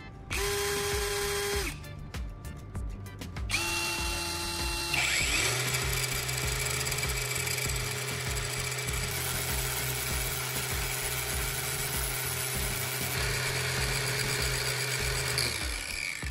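Cordless drill spinning a brass plug prong against a grinding disc to sharpen it into a point: two short whirs of the drill, then from about five seconds in a long steady run with a grinding hiss, stopping shortly before the end.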